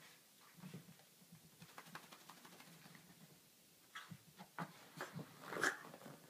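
Small curly-coated dog wriggling and rolling on its back on a carpet: faint, irregular scuffling and rubbing, with a few short, sharper sounds about four seconds in and a louder one near the end.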